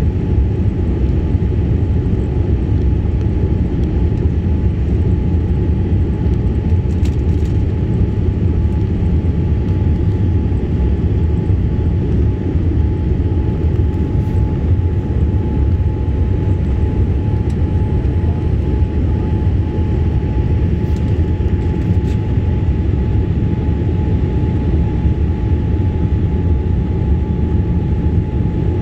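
Steady loud cabin noise of a jet airliner in flight with its wing flaps extended: a deep, even rush of engines and airflow heard from inside the cabin, with a faint steady high hum running through it.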